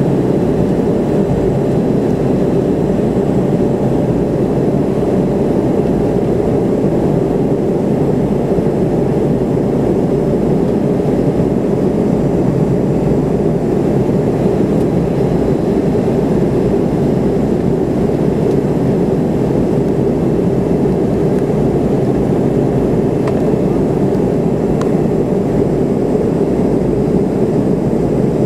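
Steady engine and airflow noise heard inside the cabin of a McDonnell Douglas MD-80 airliner climbing out after takeoff, from its rear-mounted Pratt & Whitney JT8D engines. A deep, even rush with a faint steady hum, unchanging throughout.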